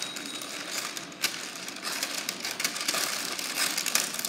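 Sheet of baking paper rustling and crinkling with many small irregular crackles as it is handled and cut to line a baking dish.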